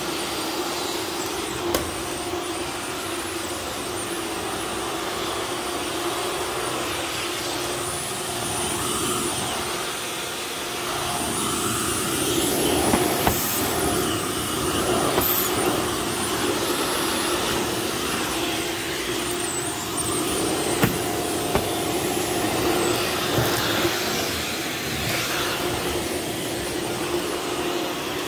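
Bosch Athlet cordless vacuum cleaner running on a laminate floor, a steady motor hum and airflow hiss. It grows louder about eleven seconds in, with a few sharp clicks along the way.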